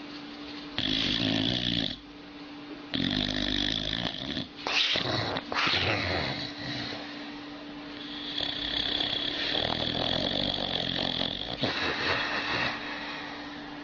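An old dog snoring in human-like snores, about five in a row, each a second or more long with a pitched tone, one of them sliding up and down in pitch near the middle. A steady low hum runs underneath.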